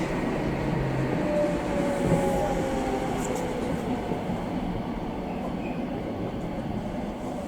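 Electric commuter train running along the track, heard from inside the car as a steady rumble of wheels and rails. A faint whine from the traction motors falls slowly in pitch and the noise eases off as the train slows.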